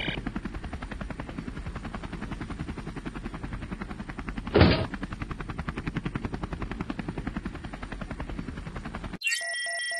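Rapid, even chopping pulses, with one loud short blast about halfway through. Near the end it cuts off abruptly and steady, pulsing electronic beeps take over.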